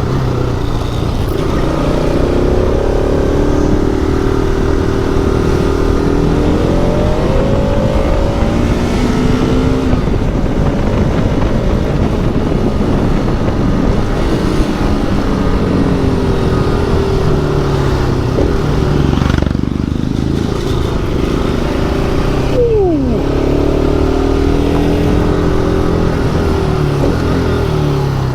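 Motorcycle engine running under way, its note rising and falling again and again as the rider works the throttle and gears, over a steady rumble and road noise.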